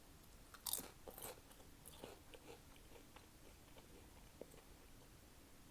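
Close-up crunching and chewing of crunchy snack chips: two loud crunches about a second in, then softer chewing crackles.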